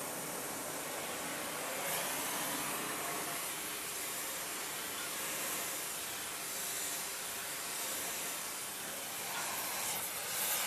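Steady hiss of a gas torch flame heating the end of a steel boiler flue to free the swaging plug inside it.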